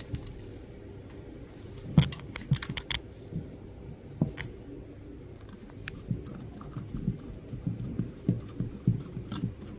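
Screwdriver turning a screw through a plastic security-camera mount into the wall: irregular small clicks and knocks. A quick cluster of sharp clicks comes about two seconds in, and a steadier run of clicks near the end.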